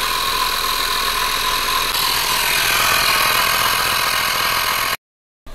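GoMechanics portable car-powered tyre inflator's air compressor running steadily under load, very loud, pumping up a car tyre toward its set 35 PSI. The sound breaks off abruptly about five seconds in.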